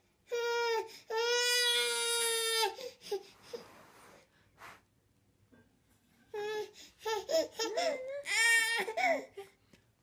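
A baby crying, frightened by soap bubbles floating around its face. There are two long high wails in the first three seconds, a lull of a few seconds, then a run of shorter, broken cries and whimpers.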